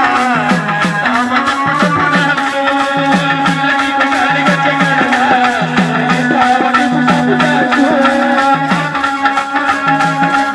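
Chekka bhajana folk devotional music played live: a man sings a wavering melody over a held drone and low drum strokes, with a fast, even clicking of wooden hand clappers (chekkalu).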